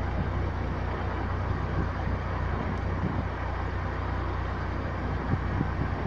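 UAZ Patriot idling steadily with its air conditioning running: a steady low hum under an even rushing noise.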